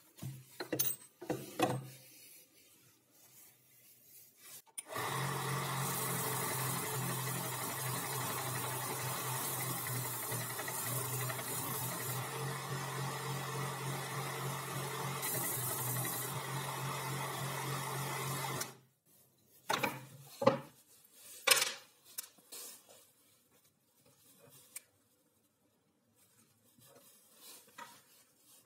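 Small homemade belt sander running steadily for about fourteen seconds while a plywood piece is sanded against the belt, the rasp of the grit coming and going. Short clicks and knocks of handling come before it starts and after it stops.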